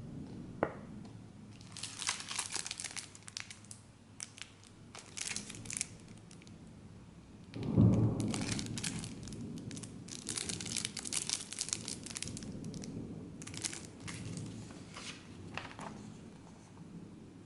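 Packaging of a Match Attax trading card starter pack being crinkled and torn open by hand, in repeated bursts. There is a heavier low thump about eight seconds in.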